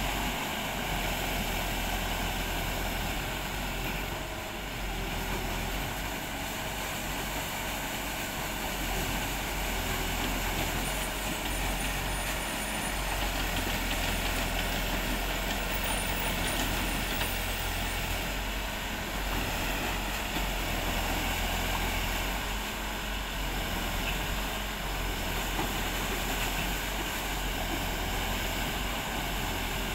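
Aquatic weed harvester running steadily: its engine hums while the side paddle wheels churn and splash through the water.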